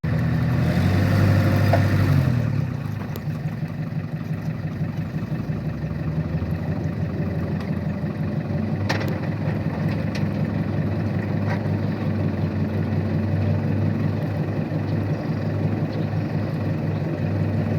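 Farm tractor engine running steadily, a little louder for the first couple of seconds before settling, with a couple of brief clicks partway through.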